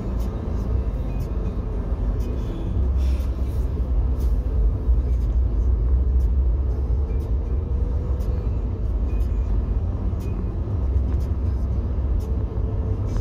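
Steady low rumble of tyre noise and engine hum heard inside a moving car's cabin, growing a little louder about three seconds in as the car pulls away and picks up speed.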